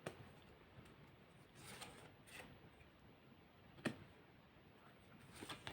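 Near silence with a few faint clicks and light rustles of tarot cards being handled and laid down on a table; one sharper click about four seconds in.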